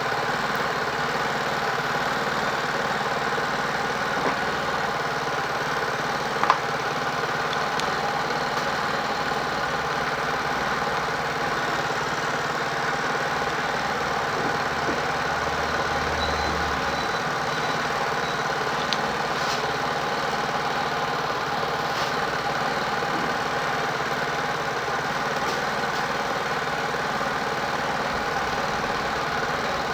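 A steady mechanical drone, unchanging throughout, with a few faint clicks and one sharper tap about six and a half seconds in.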